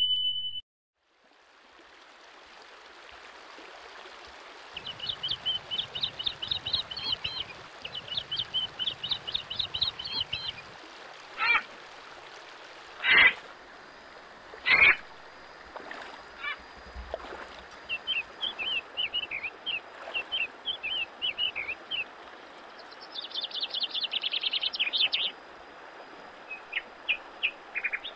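A short electronic chime at the very start, then a shallow river running over rocks with birds chirping in quick repeated trills throughout. Three louder calls come near the middle, and a thin steady high tone joins about halfway.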